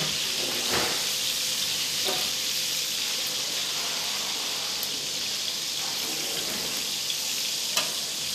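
Prawns sizzling in hot olive oil in a paella pan, a steady frying hiss as they are seared to take colour while staying raw inside, with a couple of faint utensil clicks.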